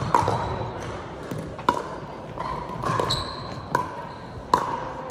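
Pickleball paddles striking a hard plastic pickleball in a rally: about five sharp pocks, irregularly spaced, each with a short ring echoing off the gymnasium walls.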